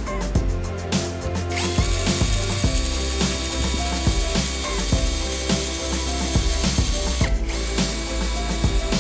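A small electric power-tool motor spins up, runs at a steady high whine, briefly drops out, then winds down near the end, over background music.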